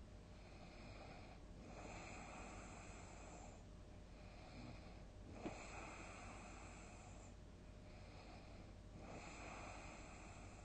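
A sleeping person snoring softly: rough, noisy breaths in and out, repeating about every three and a half to four seconds. A short click about five and a half seconds in.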